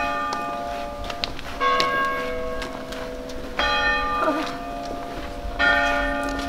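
Church bell tolling slowly for a funeral, about one stroke every two seconds, each stroke ringing on into the next.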